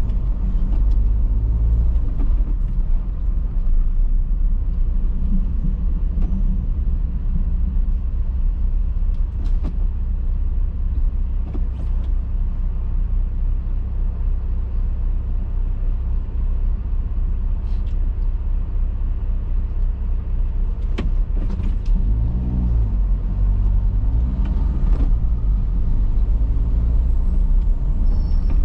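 Steady low rumble of a car on the road, with a few brief clicks.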